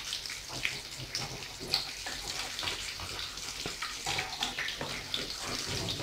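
Croquettes sizzling and crackling in hot oil in a frying pan, with many small pops, while a metal spatula and spoon scrape and tap against the pan as they are turned.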